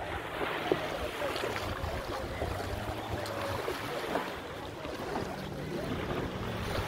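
Seaside ambience: wind buffeting the microphone over small waves washing onto the sand, a steady rushing noise.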